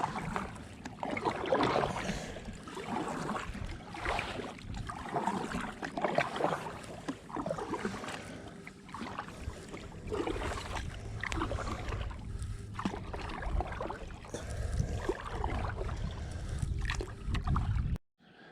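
Kayak paddle strokes, the blades dipping and splashing water every second or so. A low rumble joins in the second half, and the sound cuts off suddenly near the end.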